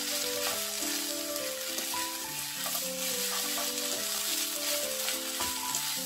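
Seaweed stems and onion sizzling in oil in a frying pan as they are stir-fried with a spatula, a steady hiss, with background music playing a simple melody of held notes over it.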